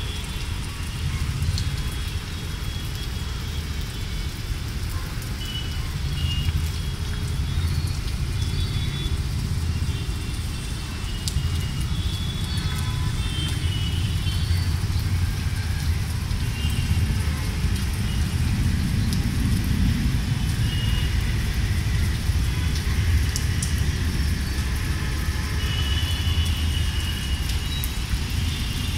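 Steady rain falling on a garden, over a continuous low rumble, with scattered short high chirps.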